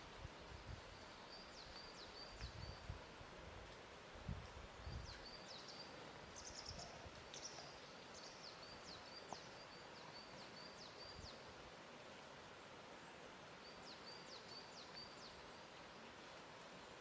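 Faint lakeshore ambience: a steady hiss with soft, irregular low thuds of water lapping, and a small bird calling in quick runs of short high chirps several times.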